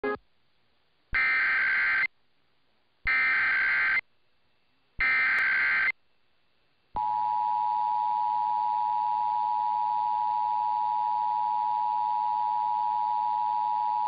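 Emergency Alert System test over AM radio: three one-second bursts of SAME header data tones, about a second apart, then about seven seconds in the steady two-tone EAS attention signal begins and holds.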